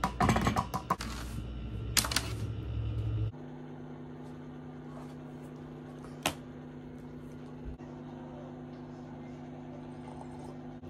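A metal spoon clinking rapidly against a ceramic mug in two short spells of stirring. After that comes a steady low hum with one sharp click about six seconds in.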